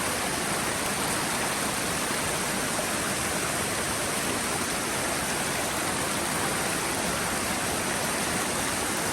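Steady rush of running water, unchanging throughout.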